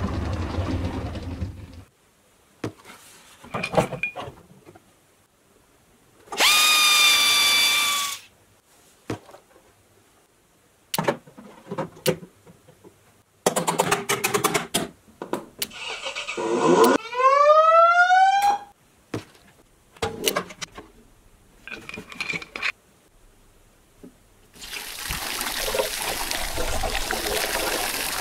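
Plastic clicks and knocks from a toy ride-on fire truck being put together. A held tone comes about a quarter of the way in and a rising whine just past the middle. Near the end, water is poured into a small plastic toy extinguisher bottle.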